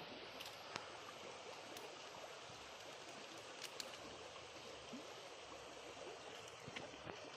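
Steady running-water noise with a few faint clicks.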